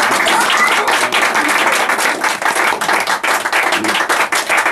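A small audience applauding: many hands clapping densely and irregularly.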